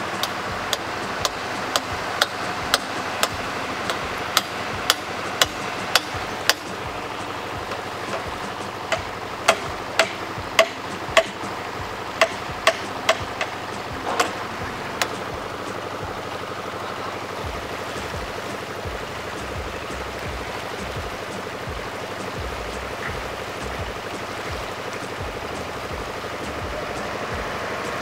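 Sharp metal strikes, about two a second, of a hammer on steel concrete formwork, in two runs of roughly six seconds with a short pause between, over a steady background rush of noise.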